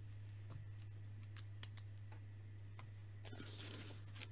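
Small Lego-compatible plastic bricks clicking faintly as they are handled and pressed together: a scattering of light, sharp clicks, with a brief rustle of plastic about three seconds in. A steady low hum sits underneath.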